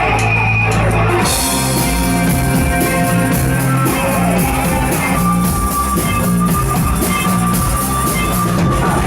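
Rock band playing live: the instrumental intro of a song, with bass, guitar and drum kit, the drums' cymbals joining about a second in.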